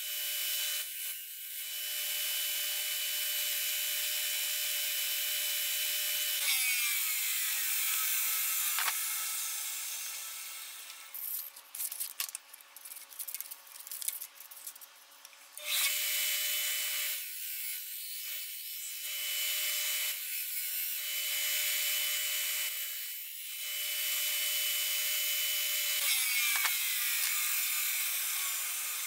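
Combination belt-and-disc sander running with a steady hiss and hum as wood is sanded on the belt. About eleven seconds in it drops away for several seconds of clicks and rattles, then runs again.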